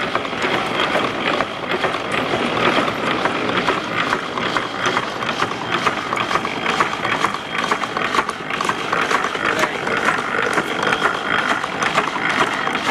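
Horse-powered sweep driving a drag saw through a tumbling rod and gearbox, running with a steady, rapid clicking and clatter of gears and shaft joints.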